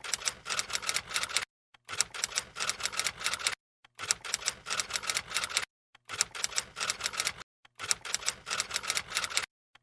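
Typewriter sound effect: rapid key clicks in runs of about two seconds, broken by short pauses.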